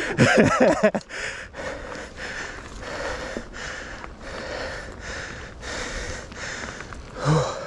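A mountain biker breathing hard close to a chest-mounted camera: quick rhythmic breaths, about two to three a second. A voice sounds briefly at the start and a short vocal grunt near the end.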